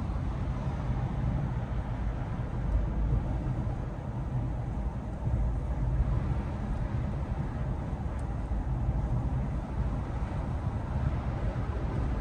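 Car driving at highway speed, heard from inside the cabin: a steady low rumble of tyres on the road and the engine.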